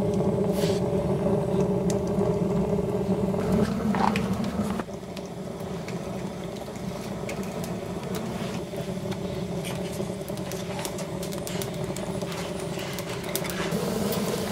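Wood stove converted to a rocket stove with a length of pipe, its fire burning with a steady low drone and scattered crackles and pops. The drone drops in level about five seconds in and grows louder again near the end.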